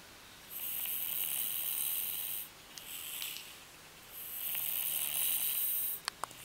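Snoring: slow, airy, hissing breaths, two long ones of about two seconds each with a short one between. A few faint clicks come near the end.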